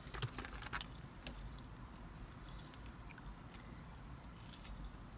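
Scattered light clicks and rustles of plastic takeout containers and food being handled during eating, several close together about a second in. A low steady hum runs underneath.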